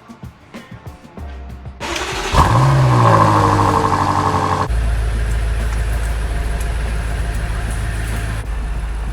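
BMW 440i's turbocharged 3.0-litre straight-six starting through an AWE axle-back exhaust: the engine catches about two seconds in, the revs flare up and fall back, and it then settles into a steady low idle.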